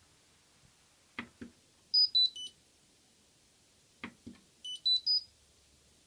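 Hotpoint washing machine's control panel: a couple of button clicks, then a falling three-note electronic chime, and about two seconds later two more clicks and a rising three-note chime, as the machine is switched off and back on.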